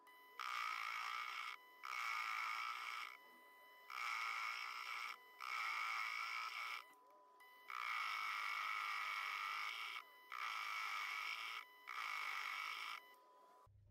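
Proxxon mini lathe cutting steel rebar: the tool's rasping cut comes in seven stretches of about one to two seconds each, broken by short pauses, over the lathe's faint steady hum. This outer part of the rebar is very hard to cut.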